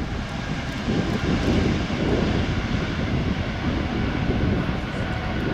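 Airbus A220-100's Pratt & Whitney geared turbofan jet engines running at high power as the jet rolls along the runway: a loud, steady rumble.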